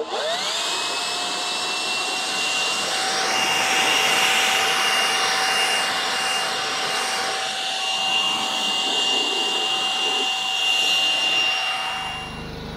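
Handheld leaf blower running, blowing debris off a compact tractor. Its motor spins up with a short rising whine, runs at a steady high whine over a rush of air, and stops near the end.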